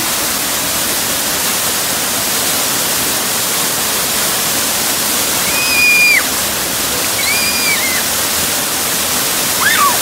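A waterfall pouring onto a shallow rock pool close by, a steady rush of falling water. About halfway through, a child gives two short high-pitched squeals over it.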